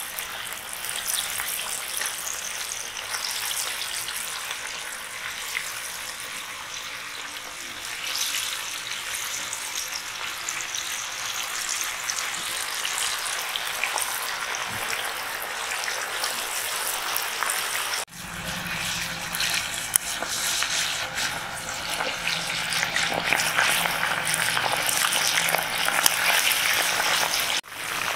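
Pieces of masala-coated leather jacket fish sizzling steadily in hot oil in a large iron kadai. The sound drops out briefly twice, about two-thirds of the way in and just before the end.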